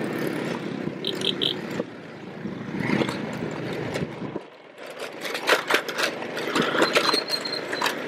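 ATV engine running while the machine rolls over a gravel dirt road, its plastic body rattling and scraping, heard from a camera mounted on the ATV. Near the middle the running sound drops away and the rest is mostly sharp rattles and clicks.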